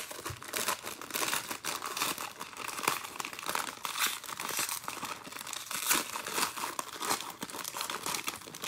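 Foil wrapper of a baseball card pack crinkling and tearing as it is peeled open and crumpled by hand, a dense run of quick crackles.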